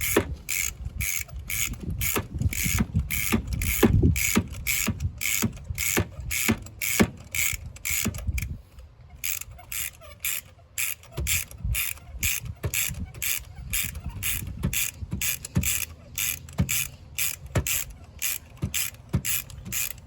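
Socket ratchet clicking in a steady rhythm, about three clicks a second, as a new spark plug is wound into the cylinder head and snugged down. The clicks break off briefly about nine seconds in, then carry on.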